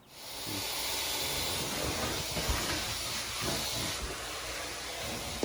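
A steady hiss that starts suddenly and holds evenly, with a faint low rumble underneath.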